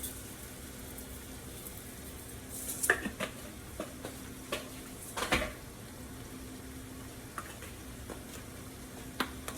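Italian sausage sizzling softly as it browns in a frying pan, with a few sharp clatters against the pan about three, five and nine seconds in as the meat is stirred and seasoned.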